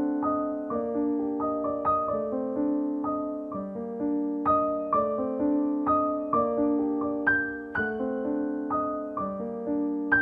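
Background piano music: a gentle melody of single notes and chords struck about twice a second.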